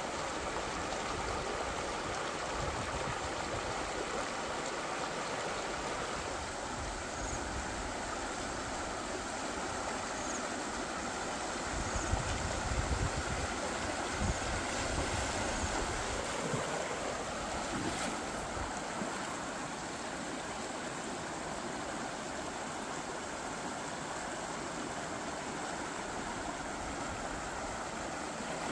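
Shallow rocky stream rushing steadily over stones in small rapids, with a brief low rumble about twelve seconds in.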